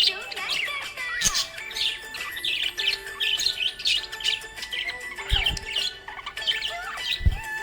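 Budgerigars chirping and warbling in a steady stream of quick, overlapping chirps and squawks. Two dull low thumps come near the end.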